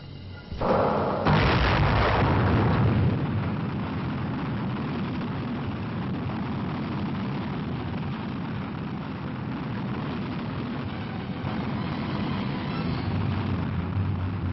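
Rocket engine roar of a Jupiter-C (Juno I) launch vehicle igniting and lifting off. It comes on suddenly about half a second in, is loudest for the next two seconds or so, then settles into a steady rumbling roar as the rocket climbs away.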